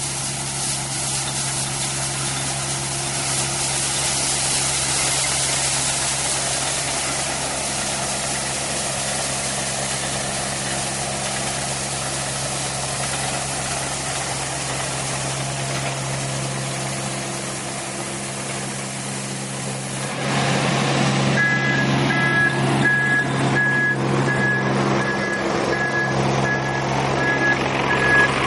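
Diesel engine of an XT855 rubber-tracked backhoe running steadily under work. About two-thirds of the way through the engine grows louder and a reversing alarm starts beeping about once a second.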